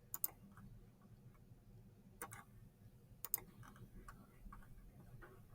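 Computer mouse clicking as lines are drawn with a polyline tool: a few sharp, irregularly spaced clicks with fainter ticks between them.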